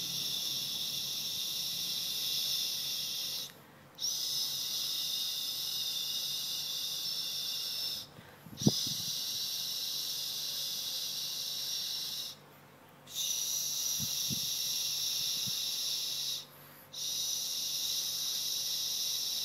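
A steady high-pitched hiss that cuts out briefly about every four seconds, with one sharp click about nine seconds in.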